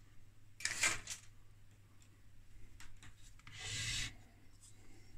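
Soft rubbing and scraping of thin sheet metal as an oscilloscope's side cover is slid off its chassis, with a few light clicks. There is a short scrape about a second in and a longer one near four seconds in.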